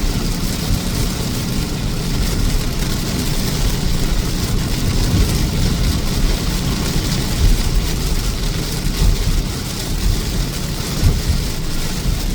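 A vehicle running with a steady low rumble under an even rushing hiss like rain or water spray.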